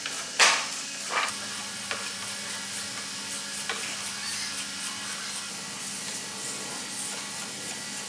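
Sandpaper rubbed by hand over a curved wooden car body panel: a steady scratchy rasp of repeated strokes, with two louder scrapes in the first second or so.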